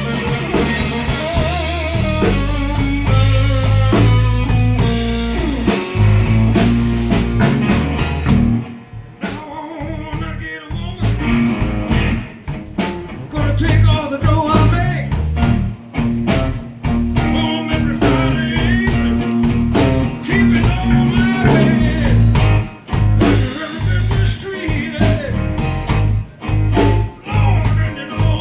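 Blues-rock music with electric guitar, bass, drums and singing. The bass and drums drop out for a couple of seconds about nine seconds in, then the full band comes back in.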